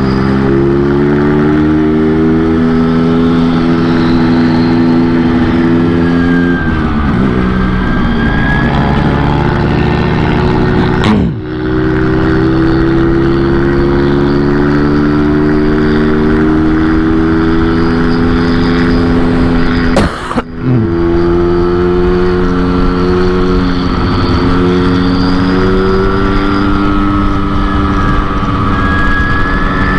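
2004 Yamaha RX-King's 135cc two-stroke single-cylinder engine running steadily under way. It is tuned Medan-style for a deep 'snoring' (ngorok) exhaust note. The engine note drops briefly twice, about eleven and twenty seconds in, then picks up again.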